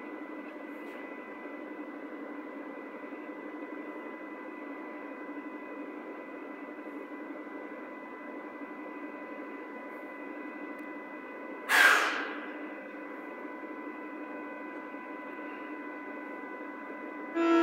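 Berlin U-Bahn class H train standing at the platform with its doors open: a steady hum with a faint whine from its onboard equipment. A short, loud hiss comes about twelve seconds in, and a loud signal tone of several pitches starts right at the end.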